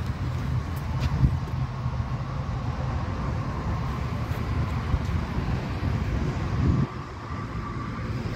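Steady low rumble of outdoor background noise with a faint steady hum; it swells briefly and then drops suddenly about seven seconds in.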